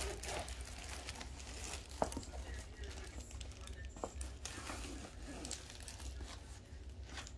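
Crinkling and rustling of a rolled diamond painting canvas being unrolled and handled, with a couple of sharp clicks about two and four seconds in, over a steady low hum.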